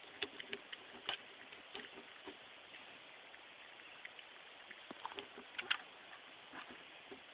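Scattered light knocks and clatter from a watering can pushed and tugged about by a Norwich terrier puppy at play. They come in two bunches: one in the first second and another about five seconds in, which holds the loudest knock.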